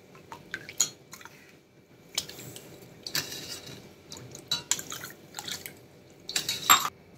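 Steel ladle stirring sugar into lemon water in a steel pot to dissolve it: irregular splashing and sloshing with sharp clinks of the ladle against the pot. The loudest clatter comes near the end.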